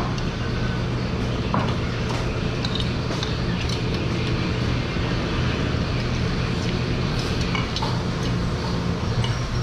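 Scattered light clinks of chopsticks and spoons against ceramic noodle bowls over a steady low background hum.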